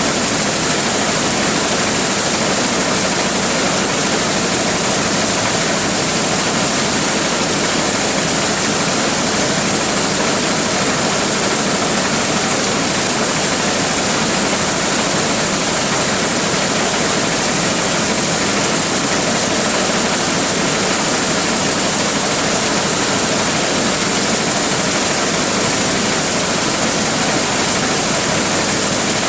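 Large engine-driven corn sheller running steadily under load: a loud, unbroken rushing noise of the threshing drum and blower, with a strong high hiss.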